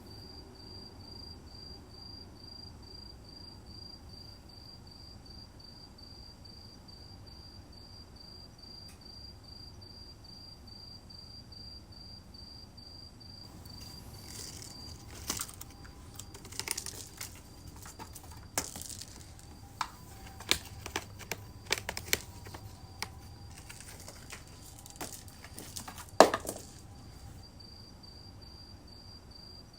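A cricket chirping steadily in a fast, even pulse of one high tone. For about thirteen seconds in the middle, a run of crinkling, rustling and sharp clicks covers it, the loudest click near the end of that run, and then the chirping carries on alone.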